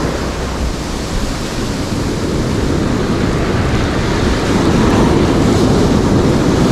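Rough sea surf breaking and washing up a sandy beach, a steady rushing noise that swells a little about five seconds in, with wind buffeting the microphone.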